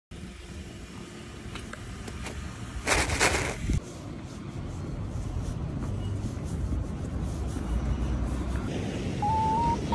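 Low, steady rumbling outdoor background noise that grows slowly louder, with one short loud burst of noise about three seconds in. A simple melody of stepped tones begins near the end.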